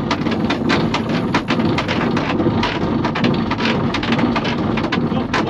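Fishing reel's drag ticking rapidly and continuously as a big fish strips line off a light noodle rod, the run still going with the reel down to its backing. A steady low hum sits underneath.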